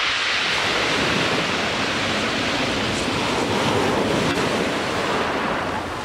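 Ocean surf: waves washing onto a sandy beach in a steady rushing hiss, easing a little near the end.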